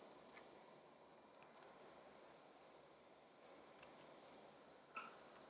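Faint, scattered clicks and taps of small screws and nuts being handled and fitted into an acrylic keyboard case and circuit board, in a cluster about halfway through and again near the end, over near-silent room tone.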